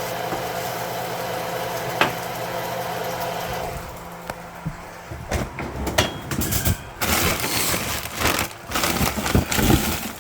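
Kitchen handling noises. A steady hum with a click about two seconds in cuts out at about four seconds, then irregular clattering, knocks and rustling follow.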